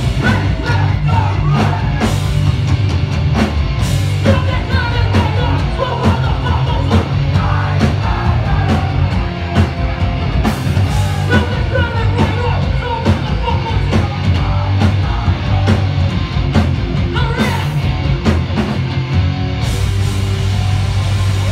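A hardcore punk band playing live at full volume: shouted vocals over distorted guitars, heavy bass and fast, pounding drums, recorded from inside the crowd.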